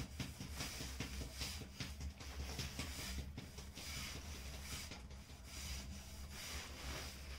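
Wet hands rubbing and smoothing a clay pot as it turns on a potter's wheel: repeated soft swishing strokes over a steady low hum.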